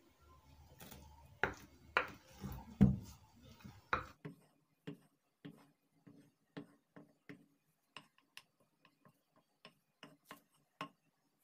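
Wooden spoon mixing thick puff puff batter in a glass bowl. A few louder knocks of the spoon against the bowl come about one to four seconds in. Then comes a run of softer, fairly regular strokes, about two a second.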